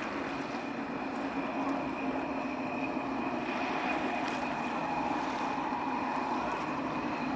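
A distant engine drones steadily at a constant pitch over a background hiss, growing slightly louder.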